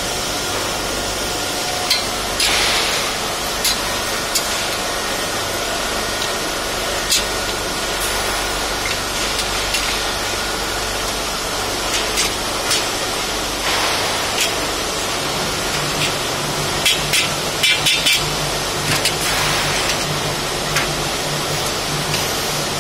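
Slotted steel shelving uprights and beams being handled and set together: scattered short metal clanks and knocks, with a quick run of them late on, over a steady background noise.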